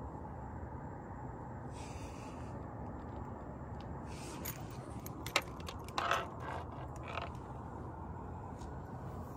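A scatter of small mechanical clicks and short scrapes over a steady low background rumble. The sharpest click comes a little past halfway, followed by a short scraping rattle.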